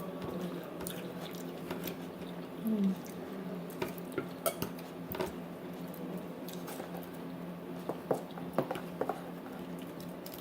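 Eating at a table: scattered light clicks of cutlery and plates with some chewing, over a steady low hum.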